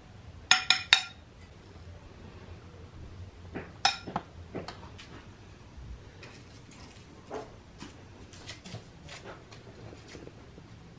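Kitchen utensils and dishes clinking: three sharp, ringing clinks in quick succession about half a second in, another near four seconds in, then lighter clicks and taps.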